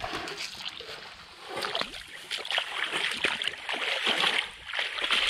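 Shallow muddy ditch water splashing and sloshing in uneven bursts as people wade and grope in it by hand, busier from about a second and a half in.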